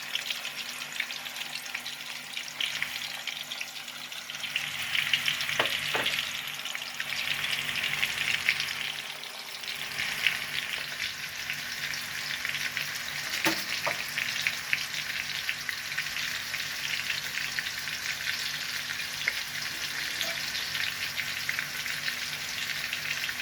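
Chopped seasonings (onion, garlic, tomato, sweet pepper, scotch bonnet, thyme) sautéing in hot oil in a pot, a steady sizzle and crackle that swells for a few seconds near the start. A few sharp knocks break in, twice close together about six seconds in and again midway.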